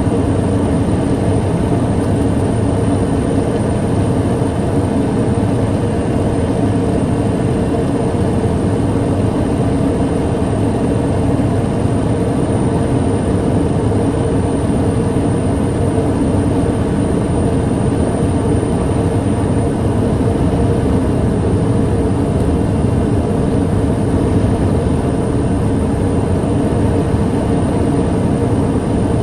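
TBM 700A single-engine turboprop, its Pratt & Whitney PT6A turbine and propeller running at steady power, with a thin constant high whine above the deep drone.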